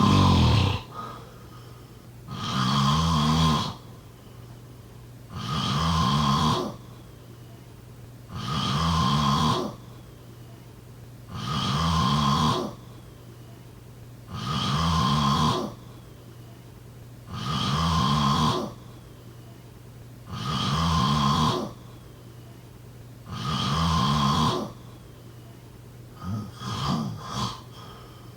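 A sleeping person snoring in a steady rhythm, one low snore about every three seconds, each lasting a little over a second. Near the end the snore breaks up into a few short, choppy sounds.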